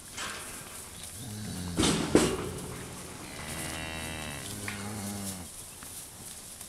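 Limousin cow mooing: one long, low call that starts about a second in and lasts about four seconds, with two loud knocks close together near its start.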